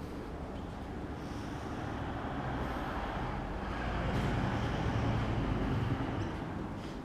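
Yamaha YZF-R125's 125 cc single-cylinder four-stroke engine running through its stock exhaust. It swells louder about four seconds in, then eases back.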